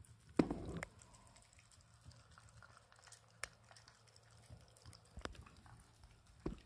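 Shiba Inu eating soft food from a stainless steel bowl: faint chewing and licking with scattered small clicks, and a brief louder noise just under a second in.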